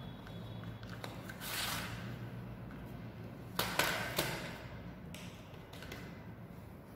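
A cardboard box of oil pastels handled on a tabletop: a brief scraping rustle, then three sharp knocks close together a little past the middle as it is set down, and a few faint clicks after.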